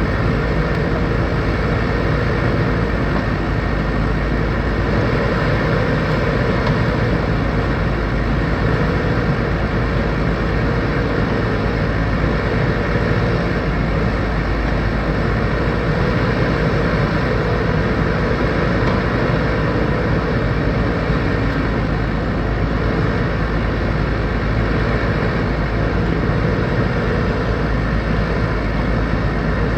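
Backhoe loader's diesel engine running steadily with a loud, continuous low drone, and a mid-pitched tone that comes and goes every few seconds.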